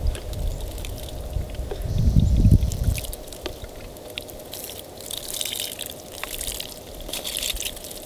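Water trickling and dripping as it is poured from a plastic bottle over a paintball marker, mostly in the second half. A low rumble comes first, loudest about two seconds in.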